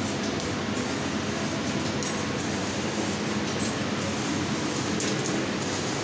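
CNC laser cutting machine cutting a pattern of holes in steel sheet: a steady hiss and machine hum, with the high hiss briefly dropping away and returning every second or so.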